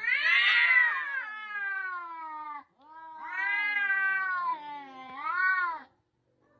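Two domestic cats yowling at each other in a face-off: two long, wavering yowls, the first the loudest with a slowly falling pitch, the second ending in a rise and fall. This drawn-out caterwauling is a territorial threat display before a fight.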